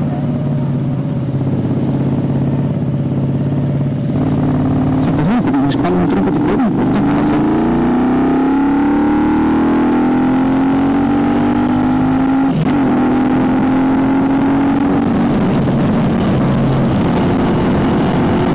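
Moto Guzzi V35's air-cooled 90-degree V-twin running steadily at low speed, then accelerating. Its pitch climbs and drops back briefly at each of three upshifts before it settles to a steadier run near the end.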